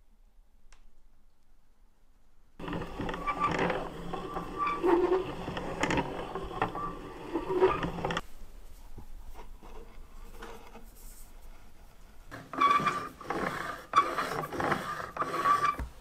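Scraping and rattling from an old rusty manual coffee grinder being handled. The sound starts a few seconds in and comes in two busy spells, with a quieter stretch of scattered clicks between them.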